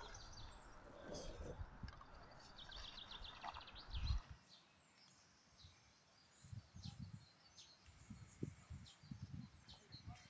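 Small birds chirping over outdoor ambience. About four seconds in the sound turns quieter, leaving faint chirps and soft, irregular low knocks.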